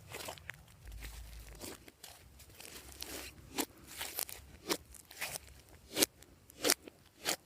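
Glossy slime being worked and mixed by hand, giving irregular sharp sticky clicks and pops, the loudest ones in the second half.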